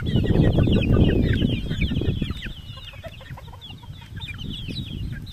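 A flock of young gamefowl chicks peeping, many short, high, falling chirps overlapping throughout. A louder low rustling noise runs under them for the first two seconds, then fades.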